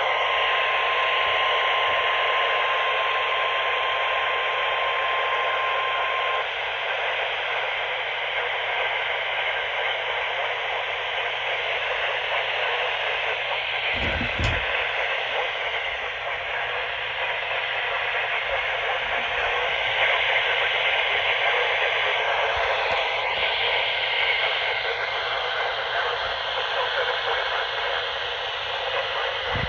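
Steady hiss of radio static from a receiver tuned to an empty channel. A thin steady tone sounds over it for the first six seconds, and a brief low thump comes about 14 seconds in.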